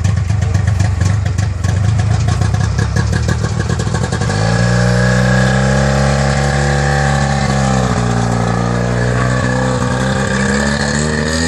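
Trabant's two-stroke two-cylinder engine running with a rough, fast-pulsing idle, then revved up about four seconds in. The revs are held, sag briefly and climb again near the end.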